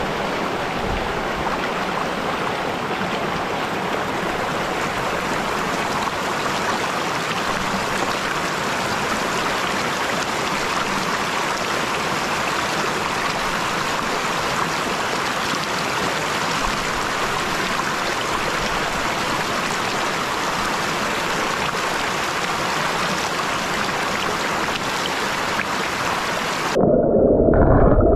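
A shallow rocky stream rushing over a small cascade, a steady, even rush of water. About a second before the end it changes abruptly to a louder, muffled low rumble as the water is heard from underwater.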